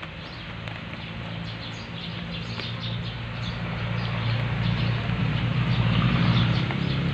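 Fingers digging through moist, fibrous potting mix around a bougainvillea cutting, a close crackling rustle, to loosen it and check for roots. Under it, a steady low motor drone grows louder toward the end.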